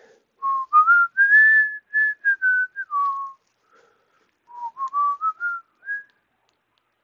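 A person whistling a short tune in two phrases, the pitch stepping up and then back down in the first and climbing again in the second, which starts about four and a half seconds in.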